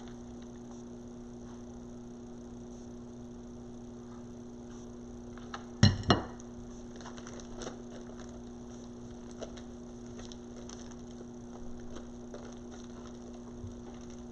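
Steady electrical hum with faint scattered clicks from handling craft materials, and two loud knocks close together about six seconds in.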